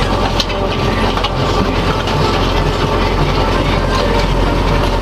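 Tractor engine running steadily under load while pulling a field cultivator, heard from inside the cab, with a few rattling knocks over the steady drone.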